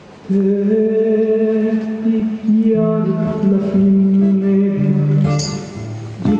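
Live band music. A passage starts about a third of a second in with long held notes that step downward, and a cymbal crash comes near the end.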